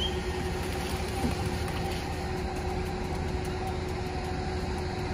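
Concrete pump's engine running steadily with a constant low hum while it pumps concrete through the hose.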